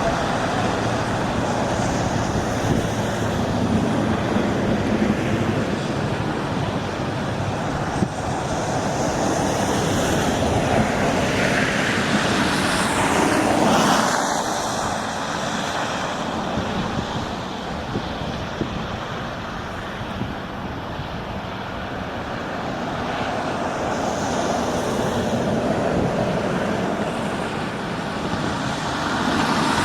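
Steady outdoor rushing noise of wind and traffic, with something sweeping past, falling in pitch, about twelve seconds in.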